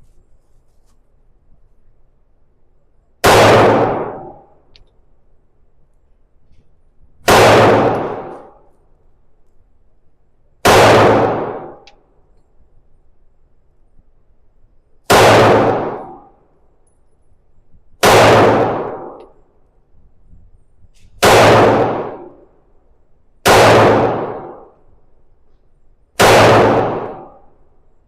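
Glock 45 9mm pistol fired in slow, deliberate single shots: eight sharp reports, roughly three seconds apart, each ringing out for about a second.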